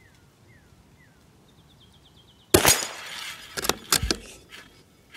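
A single .22LR shot from a Ruger Precision Rimfire bolt-action rifle about two and a half seconds in, followed about a second later by a quick run of sharp metallic clicks as the bolt is cycled. Faint bird chirps come before the shot.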